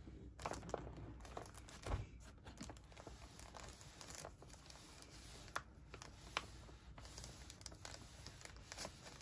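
Faint rustling and crinkling of paper sheets being handled, with scattered light clicks and a soft knock about two seconds in.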